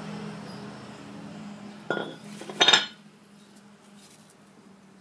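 Honda Civic EG front brake rotor being slid off its hub and handled: two metallic clanks about two seconds in, the second louder and ringing.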